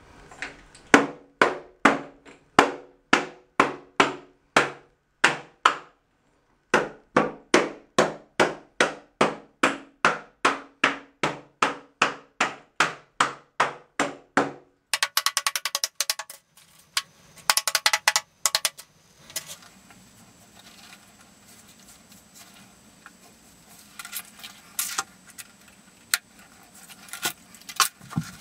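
Rubber grout float tapped flat against sheets of mosaic tile to bed them into the thinset: steady knocks about three a second in two long runs with a short break. After about fifteen seconds come quicker, sharper clicks, then quieter, scattered knocks and handling of the tile.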